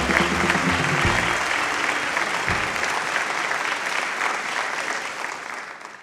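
Large audience applauding, with music under it for about the first second; the applause fades away near the end.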